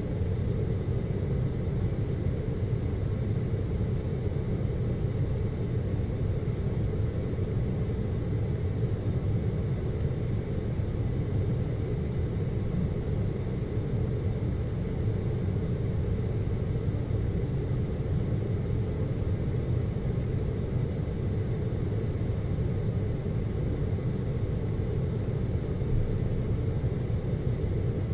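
Aerial cable car cabin travelling along its rope: a steady low rumble heard from inside the cabin, with a faint steady high tone above it.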